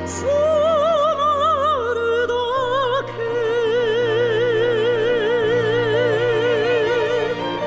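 Background music: a slow ballad passage whose melody is held in long notes with wide vibrato over sustained low chords.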